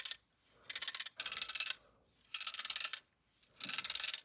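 3D-printed plastic fidget toy being worked by hand, giving about five short bursts of rapid ratchet-like clicking with brief pauses between them.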